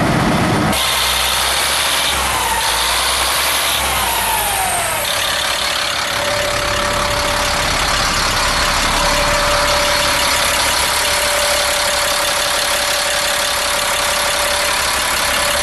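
Caterpillar diesel engine of a heavy truck running steadily. A whine falls in pitch a few seconds in and then settles into a steady tone.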